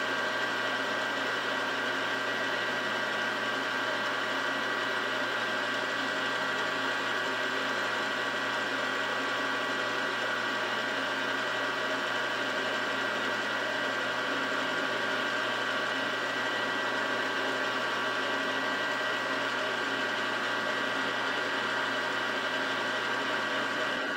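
Milling machine running steadily with a boring head on the spindle, boring out a hole in a metal base casting. The sound is a constant mechanical whine with several steady high tones and does not change through the cut.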